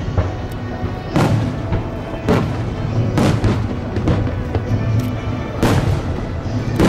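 Aerial fireworks shells bursting, about one bang a second, each with a fading tail, while music plays.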